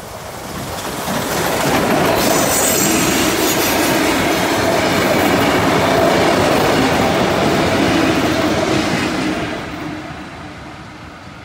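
A train of a K class steam locomotive and Tait carriages passing close by: the rumble of the locomotive and the carriage wheels running on the rails builds over the first two seconds, holds steady and loud while the carriages go past, then fades away near the end.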